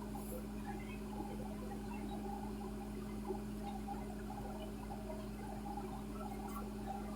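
A steady electrical hum with faint, irregular crackling and light clicks, and one sharper tap about three seconds in.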